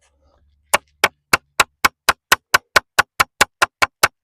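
Hammer driving a nail into timber: a rapid, even run of sharp blows, about four a second, starting just under a second in.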